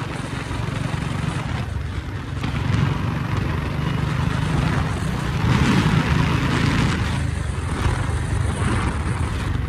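Royal Enfield Bullet 350's single-cylinder engine and exhaust running steadily under way, heard from the rider's seat with wind and road rush. It gets louder about two and a half seconds in and again around the middle, as the throttle opens.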